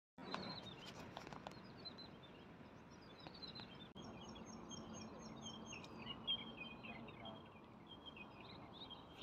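Small birds chirping and calling over faint outdoor ambience, with a quick evenly spaced run of high notes about four seconds in.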